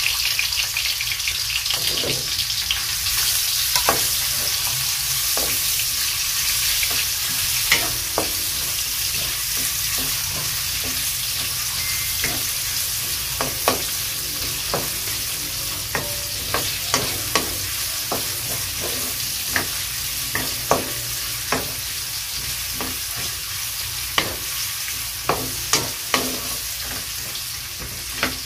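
Sliced ginger sizzling in hot cooking oil in a wok, stirred with a wooden spatula that knocks against the pan again and again, more often in the second half. The ginger is being sautéed until it browns, and the sizzle eases a little as it goes on.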